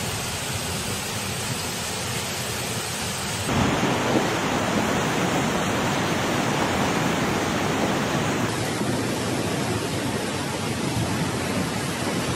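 Rushing brown floodwater with heavy rain: a steady noise that jumps louder and fuller about three and a half seconds in and changes again near eight and a half seconds.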